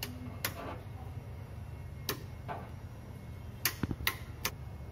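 Sharp mechanical clicks of the logic input toggle switches on a digital IC trainer being flipped, one about half a second in, one around two seconds, then a quick cluster of four near the end, over a steady low hum.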